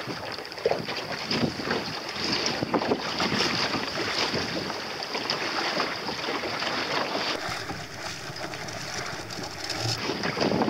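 Wind buffeting the microphone over water washing along the hull of a small sailing dinghy under way, an uneven rushing noise.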